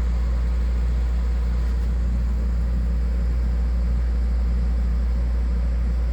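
Two air conditioners in cooling mode running steadily: an even, low hum of compressor and fan with a light whoosh of moving air.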